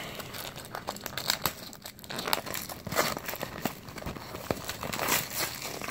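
Cellophane shrink wrap crinkling and crackling in irregular bursts as it is torn off a sealed trading-card hobby box and the box is handled.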